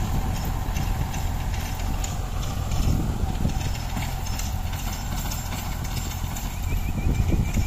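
Mahindra 475 DI SP Plus tractor's diesel engine running steadily under load, pulling a 7-foot rotavator through the soil, with an irregular knocking from the rotavator working.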